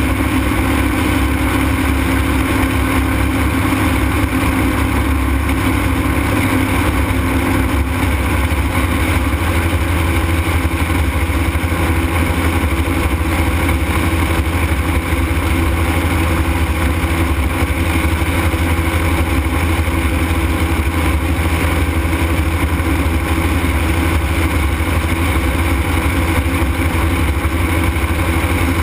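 Ultralight aircraft engine running steadily in flight with the rush of wind over the airframe, a constant drone whose pitch shifts slightly about eight seconds in.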